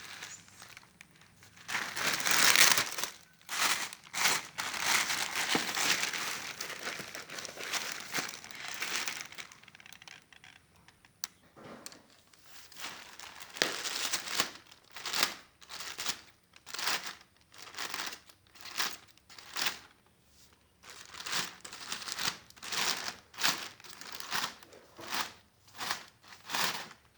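Plastic shipping packaging being crumpled and torn open: long stretches of rustling and tearing, then a run of short, regular crinkles about once a second.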